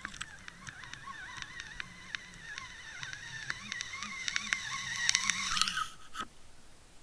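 Underwater camera on a fishing line being hauled up through the water: a wavering, whistle-like whine with scattered sharp clicks, which stops about six seconds in as the camera breaks the surface.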